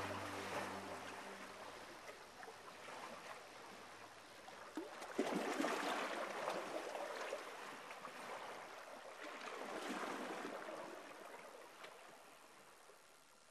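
The last notes of the soundtrack music die away about a second in, leaving a soft rushing noise like running water that swells twice and fades out.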